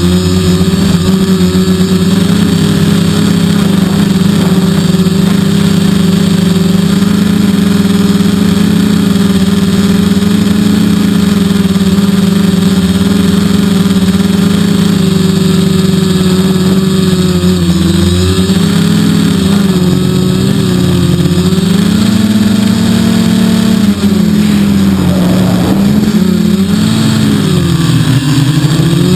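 3DR quadcopter's electric motors and propellers humming steadily in flight. In the last third the pitch repeatedly rises and falls as the motors speed up and slow down to hold the craft against strong wind.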